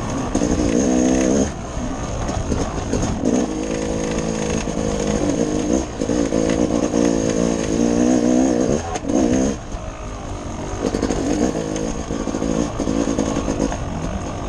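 Dirt bike engine under way on a trail, its revs rising and falling with the throttle, easing off briefly about a second and a half in and again near ten seconds. A thin steady high whine runs underneath.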